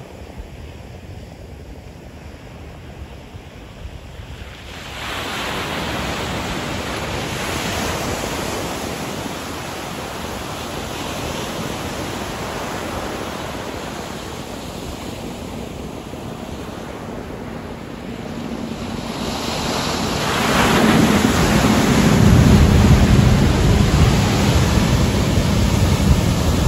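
Ocean surf breaking and washing up a sandy beach. It swells about five seconds in, eases off, then builds again from about twenty seconds into a louder wave break with a deep rumble.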